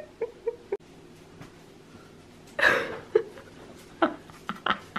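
Short squeaky bursts of laughter with quiet gaps between, and one louder, harsher burst about two and a half seconds in.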